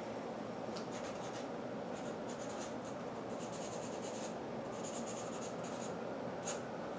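A paintbrush scrubbing paint onto paper on an easel, in several runs of short scratchy strokes, with a sharp tick near the end. A steady low hiss lies underneath.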